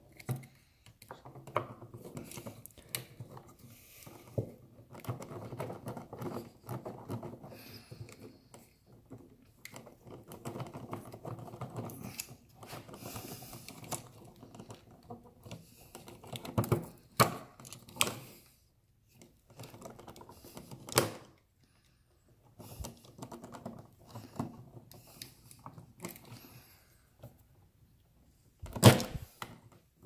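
Hands and a screwdriver working an old wall light switch loose from its electrical box: irregular scraping, rattling and small clicks of the switch's metal strap, plastic body and stiff wires. Several sharp clicks or knocks stand out, a few in the middle and one just before the end.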